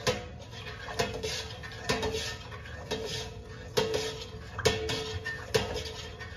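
A long-handled metal ladle stirring soy milk in a large stainless steel stockpot as it heats. The ladle knocks against the pot about once a second, seven times, and each knock rings briefly.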